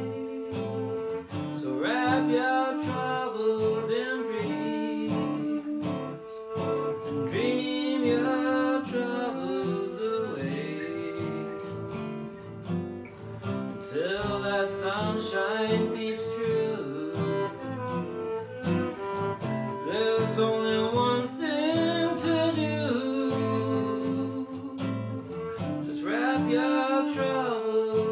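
Acoustic jazz standard: a plucked guitar keeps a steady accompaniment under a bowed-string melody that slides between notes.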